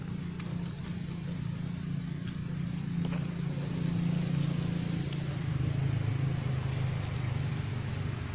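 A low, steady engine hum, growing slightly louder from about three seconds in, with a few faint clicks.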